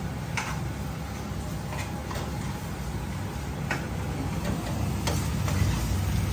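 A spatula stirring a thick, dry mutton fry in a non-stick pan, knocking against the pan with a few scattered light clicks over a steady low hum.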